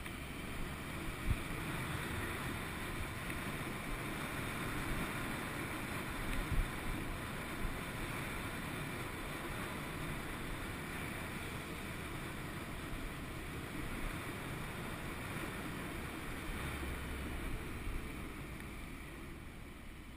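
Wind buffeting a helmet-mounted action camera while riding a Honda VFR800 VTEC, with the motorcycle's V4 engine running underneath. The noise eases off over the last couple of seconds as the bike slows.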